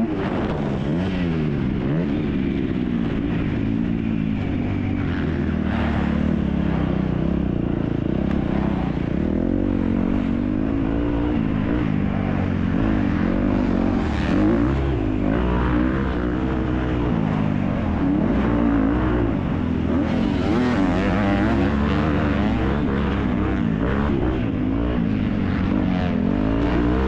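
Motocross bike engine heard up close from on the bike, revving up and dropping back again and again as the rider twists and rolls off the throttle through the gears around a dirt track.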